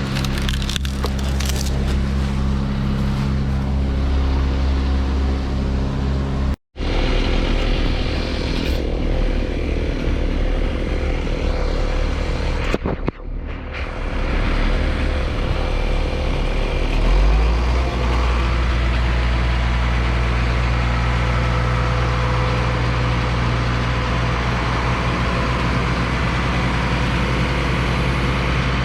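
A heavy diesel engine running steadily, cut off abruptly about a quarter of the way in and again near the middle; a little past halfway its note rises and it holds at higher revs, louder and steadier.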